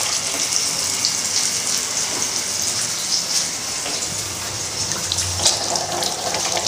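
Chicken kabab patties sizzling in shallow oil on a flat tawa griddle: a steady hiss with fine crackling.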